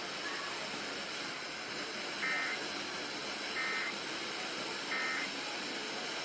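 Emergency Alert System end-of-message signal: three short, buzzy SAME data bursts about 1.3 seconds apart over a steady hiss.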